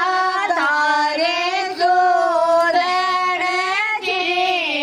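A woman's voice singing a slow melody without accompaniment, holding long notes and sliding between them.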